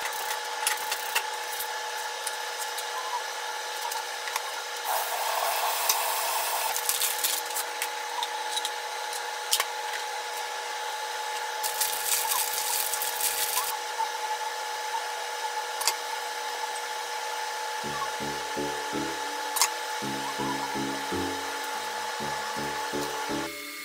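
Steady electrical hum of a running kitchen appliance, with scattered clicks of kitchen items and a plastic snack bag rustled open about twelve seconds in. Light background music with a stepping melody comes in about three-quarters of the way through.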